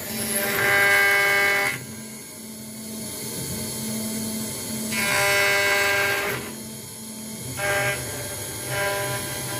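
CNC router's axis motors whining in short runs while the machine is set up, each run a steady tone that starts and stops, with a louder stretch near the start and another around the middle.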